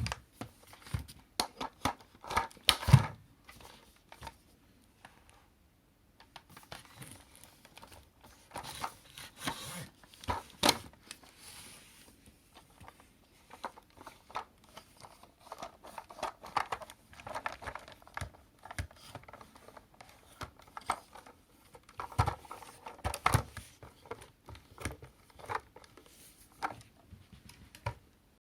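Irregular clicks, knocks and rustling of objects being handled, with short pauses; the loudest knocks come about three seconds in and again near the end.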